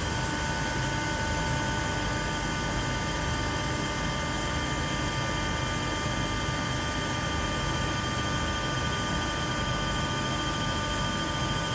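Steady mechanical rushing noise with several constant high whining tones over it, unchanging throughout.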